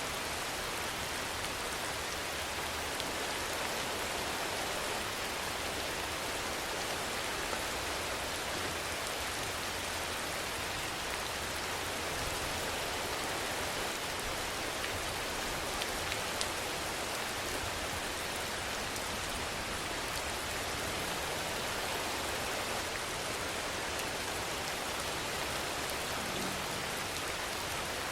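Steady rainfall: an even hiss of rain with scattered faint drop ticks, never swelling or fading.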